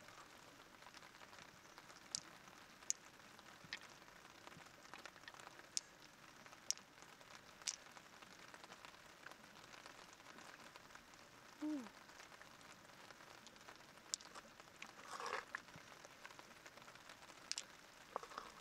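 Faint scattered sharp clicks over a low crackling hiss, with a short falling squeak about twelve seconds in and a brief rustle a few seconds later.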